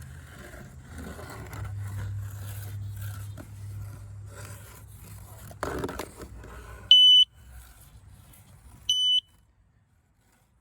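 Handheld metal detector scanned along a sawmill log, scraping on the bark, then giving two short high beeps about two seconds apart; a low steady hum runs underneath.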